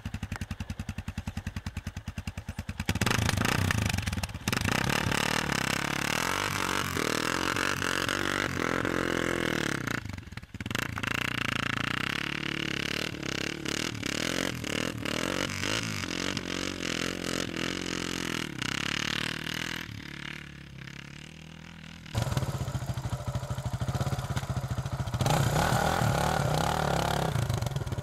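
Off-road motorcycle engine idling with an even beat, then revved hard in rising and falling surges as the bike scrabbles up a grassy, muddy slope. It drops back briefly twice and is revved hard again near the end.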